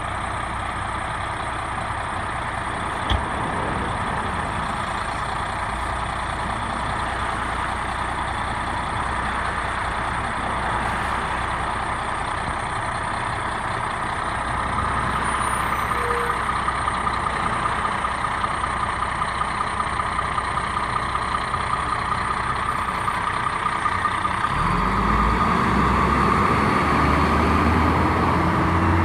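Fire truck's diesel engine running steadily, with a single click about three seconds in. Over the last few seconds a low sound rises steadily in pitch and grows louder.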